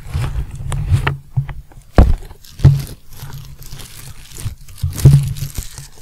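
Cardboard box and paper packing rustling and crinkling as a package is unpacked by hand, with a few loud dull knocks, the strongest about 2 seconds and 5 seconds in.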